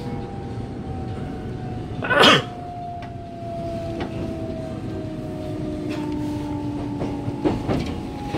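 Electric commuter train running, heard inside the passenger car: the whine of its Toshiba IGBT VVVF traction inverter, several tones slowly falling in pitch, over steady running rumble with a few light clicks. About two seconds in a short, loud rush of noise cuts through.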